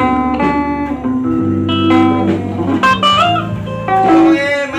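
Electric guitar played melodically: sustained single notes over held lower notes, with a wavering bent note a little past halfway.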